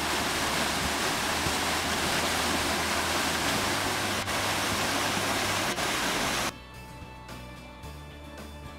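Steady rush of lake water pouring from a siphon pipe. It cuts off abruptly about six and a half seconds in, giving way to quieter background music.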